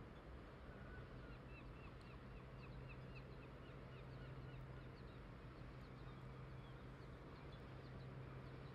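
Faint outdoor background: a steady low hum with a bird's short, high chirps repeating two or three times a second from about a second in until near the end.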